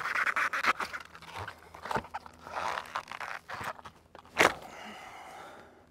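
Old rubber pipe boot being twisted and pulled up off a PVC vent pipe, its rubber and old caulk scraping and crunching against the pipe in uneven spells. A sharp crack about four and a half seconds in is the loudest sound.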